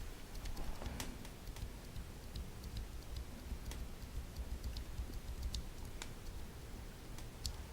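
Tactile mechanical keyboard switches being pressed and released by hand, giving faint, sharp plastic clicks at irregular intervals, over a low background rumble.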